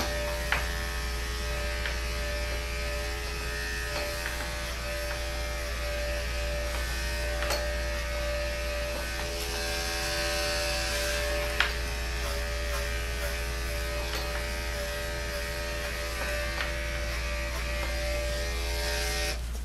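Andis electric dog grooming clipper running with a steady buzz as it clips the dog's head, with a few light clicks, one louder about halfway through; the clipper cuts off near the end.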